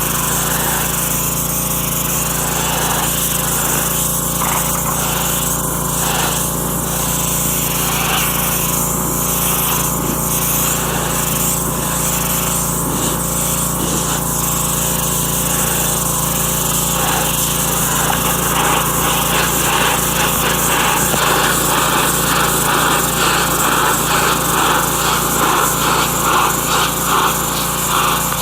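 Petrol-engine pressure washer running steadily under the hiss of its high-pressure water jet striking a surface. The spray grows louder and more uneven in the second half.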